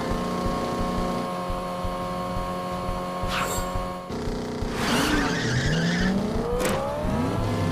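Cartoon race-car sound effects over held background music: a car engine running, a short whoosh and then a longer tyre skid about halfway through, and rising engine revs in the second half as the gear lever is shifted.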